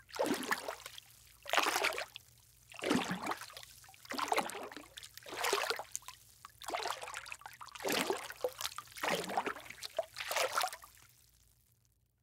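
Water sloshing and gurgling in repeated surges, about nine of them roughly a second and a quarter apart, starting abruptly and fading out near the end.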